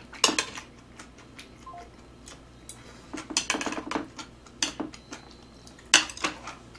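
Scattered sharp clicks and taps of metal chopsticks against side-dish plates and bowls while eating, thickest about three seconds in and again near the end.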